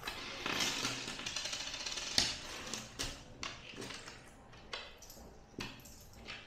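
Coins jingling as they are shaken out of a wallet over a wooden table, followed by a handful of separate clicks as coins land on the tabletop and are picked at.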